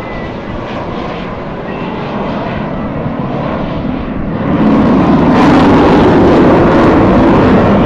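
Jet noise from an F-4 Phantom's twin engines in a demonstration pass. The steady roar grows slowly, then gets sharply louder about four and a half seconds in.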